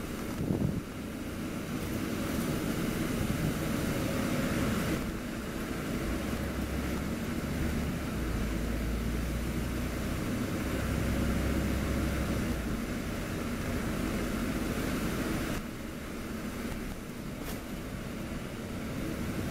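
VDL DB300 double-decker bus in motion, heard from the upper deck: diesel engine and road noise running steadily. A deep low rumble swells in the middle and eases off about three-quarters of the way in.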